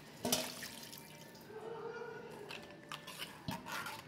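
Watery curry paste simmering in a pot, with small scattered pops and ticks of bubbling liquid.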